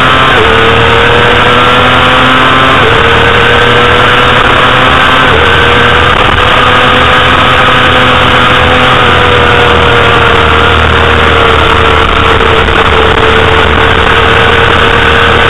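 Honda CBR250RR's inline-four 250 cc engine running at high revs under racing load, its pitch held high with a few brief dips near the start and around three and five seconds in. Wind noise rushes over the onboard microphone.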